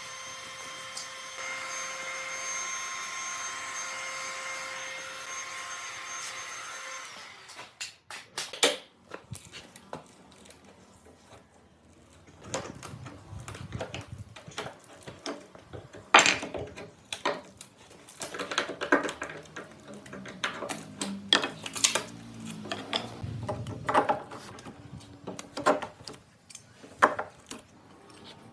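An electric power tool in a woodworking shop runs with a steady whine, then shuts off about seven seconds in. Irregular knocks and clatter of tools and wood being handled follow.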